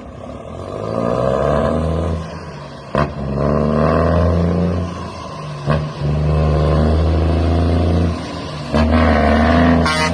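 International truck's diesel engine rumbling through its exhaust, swelling and easing about four times as it is revved. Two short sharp clicks come between surges, and a brief high-pitched sound comes near the end.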